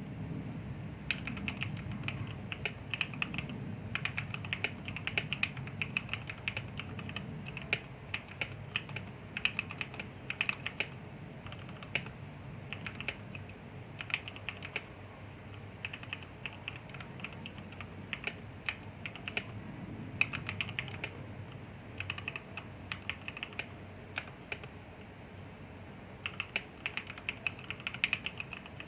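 Typing on a Motospeed K87S mechanical keyboard fitted with Gateron Yellow linear switches lubed with Krytox 205g0, its stabilizers clipped and lubed. The keystrokes come in quick runs broken by short pauses.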